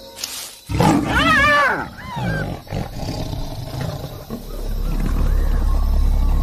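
Lion attacking a sleeping hyena: a loud animal cry about a second in, rising then falling in pitch, then a couple of shorter cries. A low steady rumble follows over the last two seconds.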